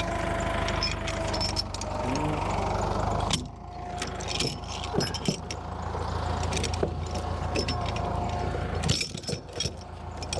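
The engine of a fork-equipped loading machine runs steadily with a low hum, under a higher whine that drops out about a third of the way in and comes back. Short metallic clinks and rattles come through it, typical of chains and steel shifting as logs are unloaded.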